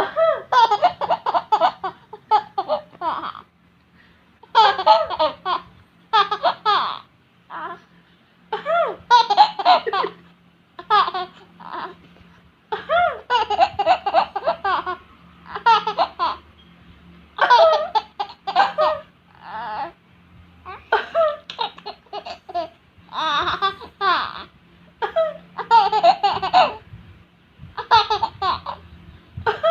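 A baby laughing hard in repeated bouts of a second or two, with short pauses between them.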